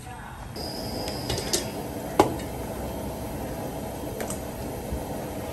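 Kitchen scissors and a stainless steel bowl set down on a stainless steel prep counter: a few light clicks and one sharp knock about two seconds in, over a steady low hum.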